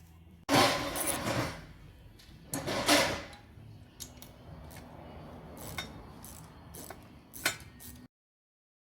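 Handling noise of hard parts: two short stretches of scraping and clattering, then a few scattered sharp clicks and knocks. The sound cuts off abruptly about eight seconds in.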